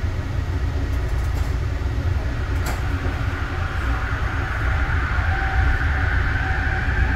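Inside a Yongin EverLine light-rail car pulling out of a station: a steady low rumble from the running gear, with a short click about three seconds in. From about four seconds in, a drive whine rises slowly in pitch as the train gathers speed.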